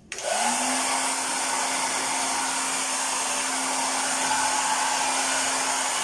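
Hair dryer switched on: the motor spins up within a fraction of a second, its hum rising to a steady pitch, then runs steadily with a loud rush of blown air. This is the test run of the dryer just after its repair.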